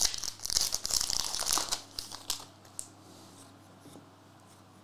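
A trading-card pack wrapper being torn open and crinkled by hand: dense crackling that dies down about two seconds in, then a few faint clicks.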